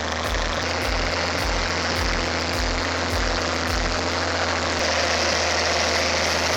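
Heavy machine's engine running steadily.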